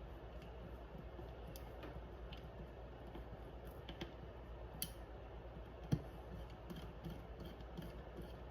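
Faint, scattered clicks and taps of small metal folding-knife parts and a driver being handled during reassembly, with two sharper clicks about five and six seconds in.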